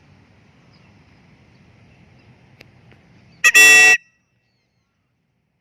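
A single loud horn honk about three and a half seconds in, lasting about half a second, with a steady pitch. After it the sound cuts out completely.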